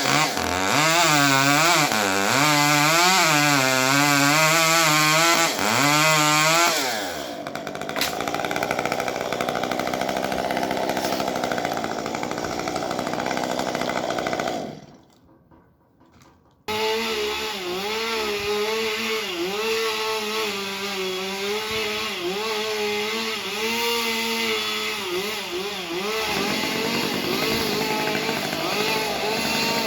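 Gas chainsaw running while cutting a tree, its engine pitch wavering up and down under load. It is loudest for the first few seconds, then quieter. About halfway through it drops briefly to near silence, then comes back abruptly.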